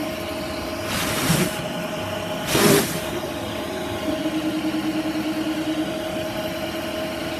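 MillRight CNC machine running while milling a circuit board, with a steady whine from its spindle and motors. Two short loud hissing bursts come about a second in and again about two and a half seconds in.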